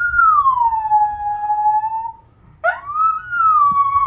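Dog howling. One long howl slides slowly down in pitch and stops about two seconds in. After a short pause a second howl swoops quickly up and then glides slowly down again.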